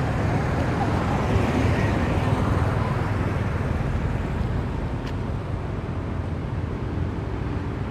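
Steady low rumble of outdoor background noise, even throughout with no distinct events.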